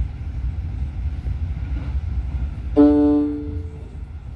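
Train running with a steady low rumble. About three seconds in, the onboard passenger-information chime rings once for about a second, the signal that a stop announcement follows.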